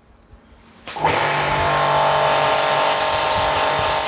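Cazar KS-CW140 2400-watt, 130-bar pressure washer starting up about a second in. Its motor hums steadily under the loud, continuous hiss of the high-pressure water jet blasting into a cement block.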